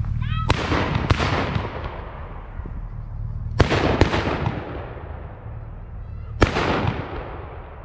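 Black-powder salute guns (Böller) firing: five sharp bangs, each trailed by a long rolling echo. Two come close together near the start, the two loudest about half a second apart midway, and one near the end.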